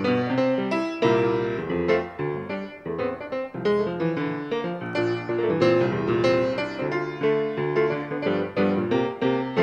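Solo piano playing a flowing piece, melody over chords, with fresh notes struck several times a second.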